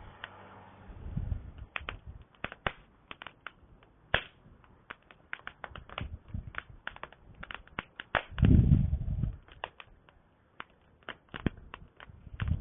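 Wood campfire crackling, with irregular sharp pops and snaps several times a second. A low rumble comes briefly about a second in and again, louder, about eight and a half seconds in.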